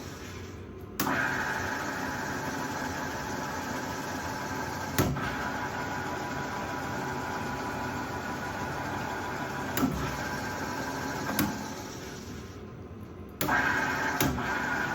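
Flott SBm3ST pillar drill running: a steady mechanical hum with a whine, broken by a few sharp clicks. The whine drops away in the first second and again near the end, then comes back abruptly.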